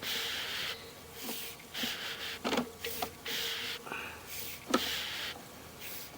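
A person's breathing close to the microphone: rhythmic hissing breaths about every second and a half, with a faint steady hum and a few short knocks, loudest near the middle.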